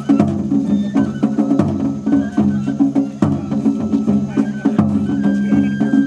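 Japanese festival ohayashi: taiko drums struck in a quick, even rhythm with sharp wooden clicks between the beats, and a high bamboo flute holding notes over them.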